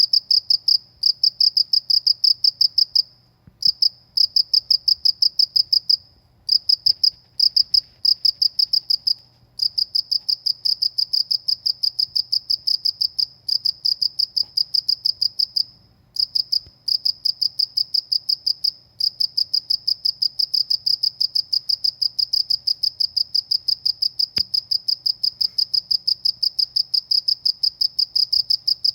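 A cricket chirping loudly: a rapid, high-pitched pulsed trill that runs in long trains, broken by brief pauses every few seconds.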